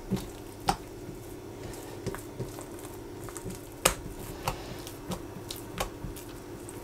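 Hands rolling soft, butter-coated yeast dough into ropes on a silicone pastry mat: scattered soft sticky slaps and clicks, the sharpest about four seconds in, over a steady low hum.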